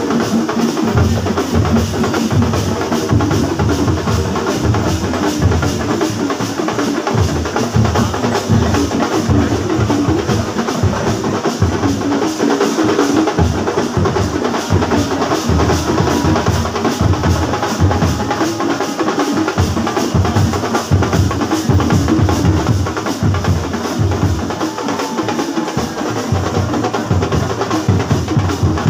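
Percussion music: fast, dense drumming that keeps up without a break.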